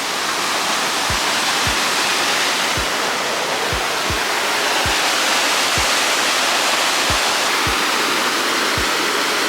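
A waterfall rushing steadily, a dense even roar of falling water. Under it runs the deep kick drum of background music, repeating in a loose pattern about once a second.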